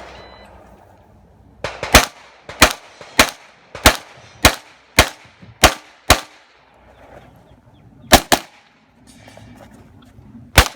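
SIG MPX pistol-caliber carbine fired in a timed stage string: eight sharp shots at an even pace, a little under two a second, then a quick pair about eight seconds in, and another quick pair near the end.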